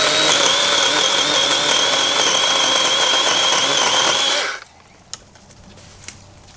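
Battery-powered DeWalt chainsaw running with a steady high whine as it cuts through a thin tree near the ground. It cuts off suddenly about four and a half seconds in.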